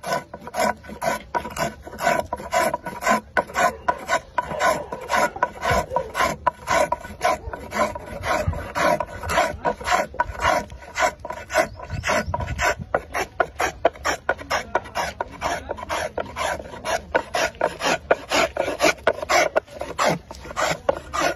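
Small hand plane shaving the face of a willow cricket bat blade in quick, even scraping strokes, about three a second.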